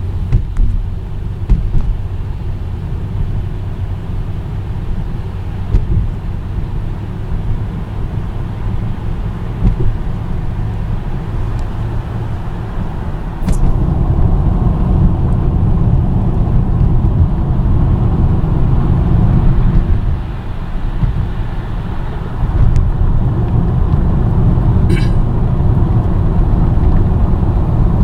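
Car driving on a highway: a steady low rumble of tyres on the road and engine, which gets louder about halfway through just after a sharp click. A short high ticking comes near the end.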